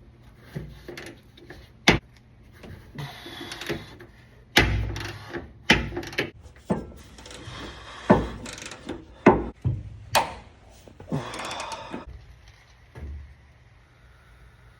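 Hand tools knocking and clanking on the metal of a Toyota JZX100's rear subframe as work starts on dropping it: irregular sharp knocks, about six loud ones, with a few longer, noisier stretches between them.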